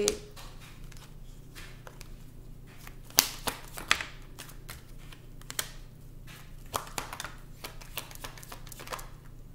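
A deck of tarot cards being shuffled and handled by hand: a run of irregular light snaps and slaps of cards, the sharpest a little after three seconds in and again about a second later.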